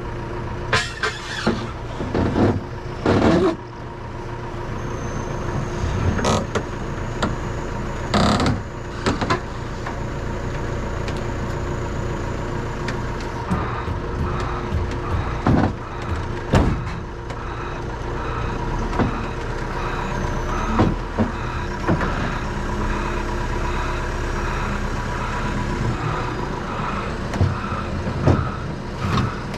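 Lorry engine running steadily, with a series of sharp metallic clanks and knocks. From about halfway in, a short beep repeats roughly once a second over the engine.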